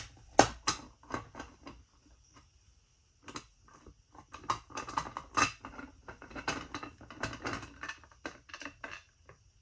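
Irregular clicks, taps and small rattles of plastic and metal as an interior dome light fixture is handled and its screw worked loose. The loudest click comes about half a second in, and the clicks come thicker in the second half.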